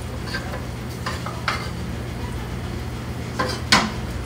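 Metal tongs stirring diced guanciale in a frying pan, with a few clicks and scrapes against the pan, the loudest near the end. A gentle sizzle of the rendered fat runs under it, with a steady low hum.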